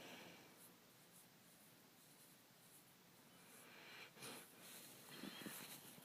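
Faint snoring: a soft breath at the start, then a louder, rougher breath about four seconds in, with small clicks.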